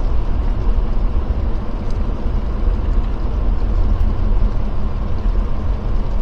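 Jeep Gladiator driving slowly on a snow-covered road: a steady, low rumble of engine and road noise.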